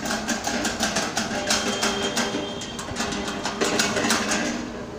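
The knob of a manual coin-operated napkin vending machine being turned by hand: a run of rapid, irregular metallic clicks and rattling from the dispensing mechanism in the metal cabinet, dying away about four and a half seconds in.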